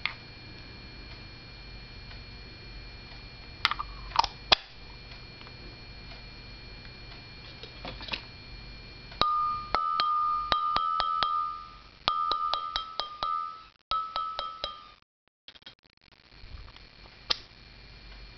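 Large chrome 6-point steel socket ringing with a clear, bell-like tone as a thin rod taps and rattles against its inside in runs of quick clicks, from about nine seconds in until it stops about fifteen seconds in. Before that, a few short metal clinks of sockets being handled.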